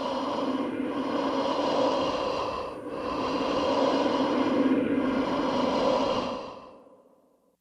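Scary, ghostly breathing sound effect: long, airy, hissing breaths with short breaks about every two seconds, fading out near the end.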